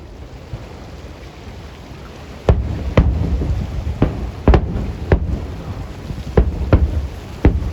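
Aerial fireworks shells bursting: after a couple of seconds of steady low background rumble, about eight sharp booms come in quick, irregular succession, each trailing off in a low rumbling echo.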